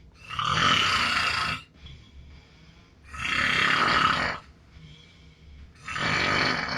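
A man snoring in his sleep: three long, loud snores about three seconds apart, with quiet breaths between.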